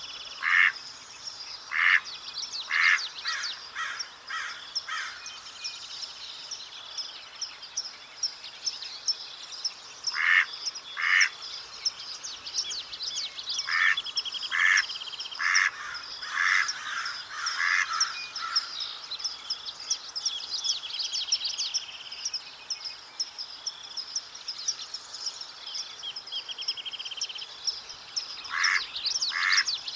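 Mallard duck quacking in runs of short, repeated quacks: a few near the start, a run of about six, a pair, another run of about six, and more near the end. Higher bird chirps and a few trills go on throughout.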